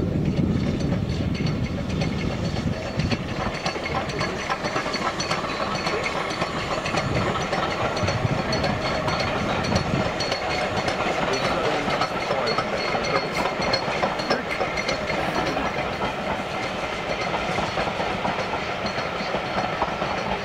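Steam train running on the line: a steady clatter of wheels on the rails with some hiss, and a heavier low rumble in the first few seconds.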